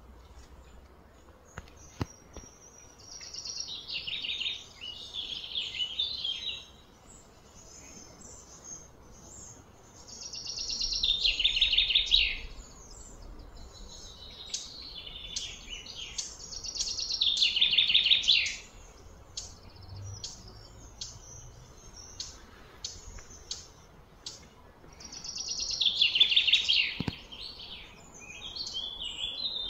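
Birds singing: several loud trilled phrases of two to three seconds each, high-pitched, with short chirps scattered between them.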